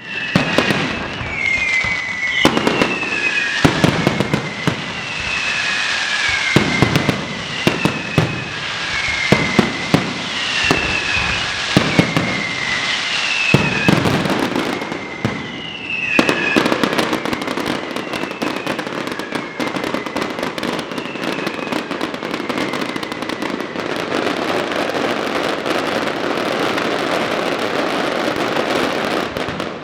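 Fireworks display: a quick run of sharp bangs with falling whistles repeating about once a second. In the last third this gives way to a dense, continuous crackling of many small bursts.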